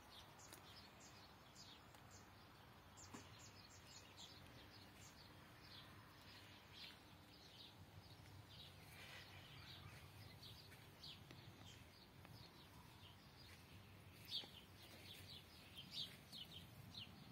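Faint birdsong: many short, high chirps scattered throughout, coming thicker and a little louder near the end, over an otherwise quiet background.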